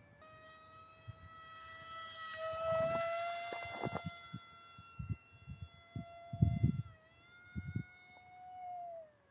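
Brushless electric motor (XING E Pro 2207) and three-blade 5x4.5 propeller of an Eclipson Helix RC plane whining steadily in flight high overhead: one tone with overtones. The pitch dips briefly about seven seconds in and drops sharply near the end, as the throttle comes back. Short low rumbles come through at times.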